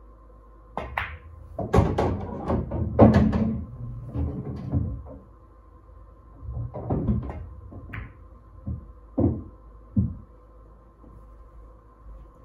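Pool balls on a pool table: the cue tip striking the cue ball, then balls clacking together, knocking off the cushions and dropping into pockets. A cluster of sharp knocks and thuds runs from about one to five seconds in, and a few more single knocks follow later.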